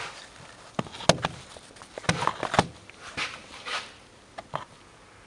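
Handling noise: a few sharp clicks and knocks with short rustles in between, the loudest about a second in.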